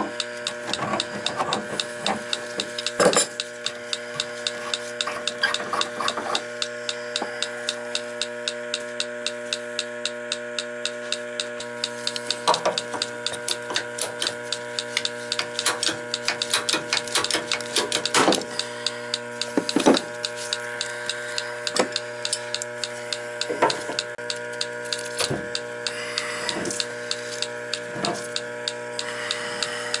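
Electronic refrigerant leak detector ticking steadily, a few ticks a second, speeding up into rapid runs in places as its probe is held at the evaporator's Schrader valve: it is picking up refrigerant leaking from the valve. A steady hum runs underneath, with a few louder knocks.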